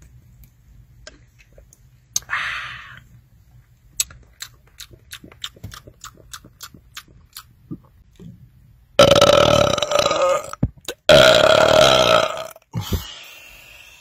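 A man belching loudly after gulping carbonated soda: two long belches in the second half, each over a second long and holding a steady pitch, then a short third one. Before them come a brief breathy sound and a run of small clicks.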